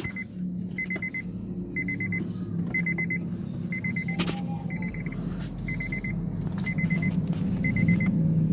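A car's electronic warning chime beeping about once a second, each beep a short rapid pulsing tone, over a low steady rumble that grows louder toward the end.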